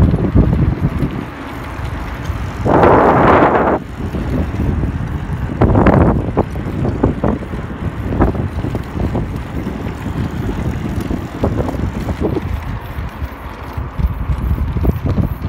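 Wind buffeting the camera's microphone while riding a bicycle, mixed with the rumble of rolling over the road. A louder rush of noise lasts about a second around three seconds in, and a shorter one comes near six seconds.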